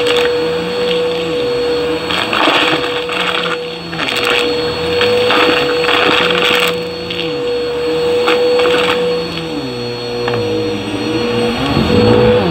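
Bagless upright vacuum cleaner running over carpet: a steady motor whine over a lower hum that rises and falls in pitch, with repeated short bursts of rattling as crunchy debris is sucked up.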